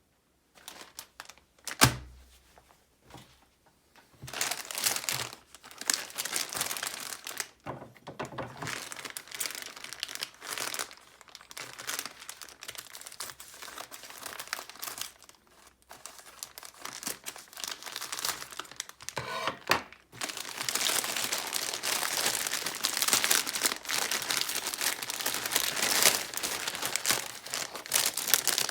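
Packaging being opened by hand: wrapping crinkling and tearing in long runs of close rustling, heaviest in the last third. A single sharp thump about two seconds in is the loudest sound.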